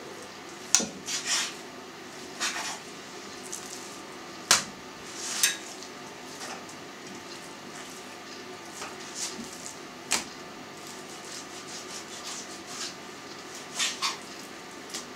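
Knife cutting raw fatty pork on a plastic cutting board: scattered sharp knocks of the blade hitting the board, a few seconds apart, with short scrapes and handling noises between.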